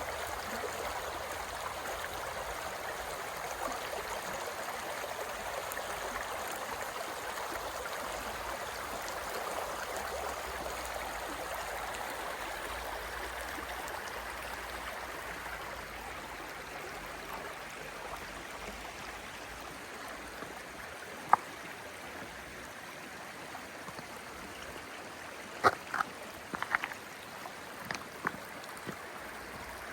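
A little stream running, a steady rush of water that eases slightly about halfway through. A sharp click sounds about two-thirds of the way in, and a short cluster of clicks follows near the end.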